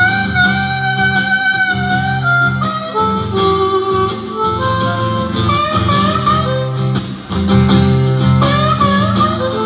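Live harmonica played through a microphone over a strummed acoustic guitar, the harmonica carrying the melody in held notes, some of them wavering.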